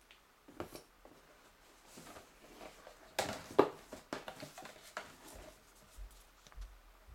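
Paper and cardboard rustling as a folded parts sheet is pulled from a reel's cardboard box, with scattered crinkles and clicks that are loudest a little past three seconds in. A few dull bumps follow near the end.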